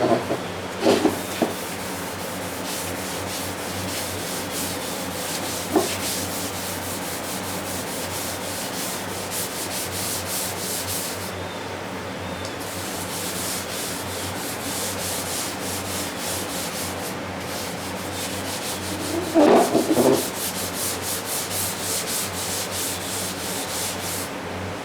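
Hand sanding with 320-grit sandpaper wrapped around a hard paint-stick block, quick, light back-and-forth strokes over runs in the sealer on a truck's body panel. The strokes break off briefly a couple of times, and a few knocks come through, the loudest about twenty seconds in.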